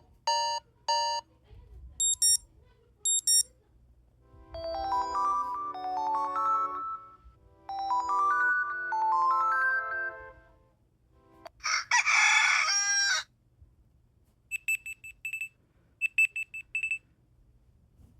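A run of Amazon Fire HD 10 (13th generation) notification and alarm tones played one after another: three short electronic beeps, two high chimes, two rising runs of melodic notes, a recorded rooster crowing, then three groups of rapid high beeps near the end.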